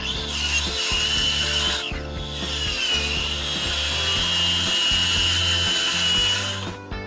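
Bosch plunge-cut circular saw running along a guide rail and cutting through an OSB board, a high whine over the rough cutting noise. It breaks off for a moment about two seconds in, then runs and cuts again until it stops shortly before the end.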